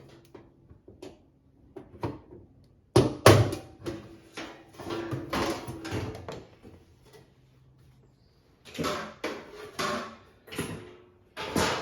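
Knocks and clattering of hard objects being handled, in two spells, with a faint steady hum under the quieter stretches.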